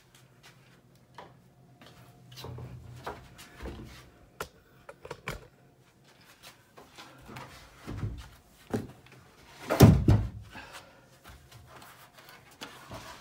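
Scattered footfalls and knocks of a person walking up carpeted stairs, with a loud low thump about ten seconds in.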